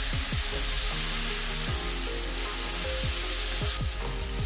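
Chopped tomatoes sizzling in hot oil with fried onion and garlic in a frying pan, stirred with a wooden spatula; the sizzle eases a little near the end.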